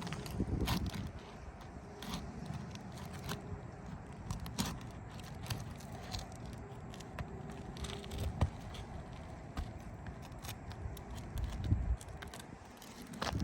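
Asphalt roof shingles being worked loose with a roofing snake: irregular scraping, crackling and small metallic clicks as the tool is pushed under the shingles to break the adhesive strip and get at the nails.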